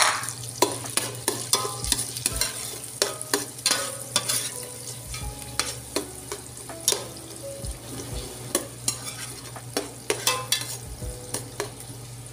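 Chopped onion and garlic sizzling in melted butter in an enamel pot, with a steady high hiss. A spoon stirs through them, clicking and scraping against the pot at irregular moments.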